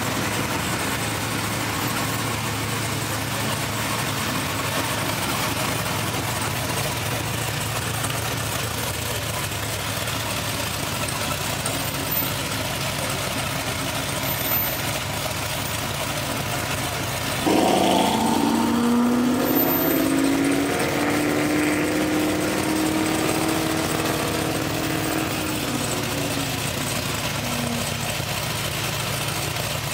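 Chevrolet Caprice Brougham's swapped-in LSA supercharged 6.2-litre V8 running steadily. A little past halfway it suddenly gets much louder in a rev whose pitch climbs and then holds, easing back down over several seconds.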